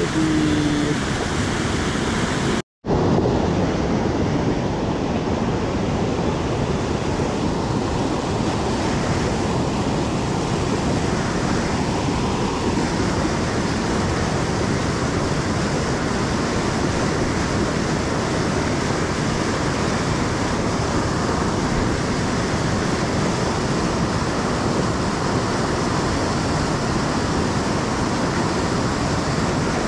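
A steady, even rushing noise, fairly loud throughout, that cuts out for an instant about three seconds in.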